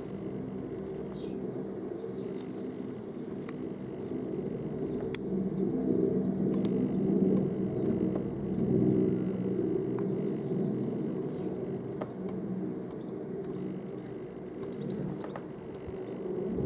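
Airbus Helicopters EC175 (H175) twin-turboshaft helicopter in flight, giving a steady low rotor and engine drone that swells about six seconds in and eases off toward the end. A few faint clicks are also heard.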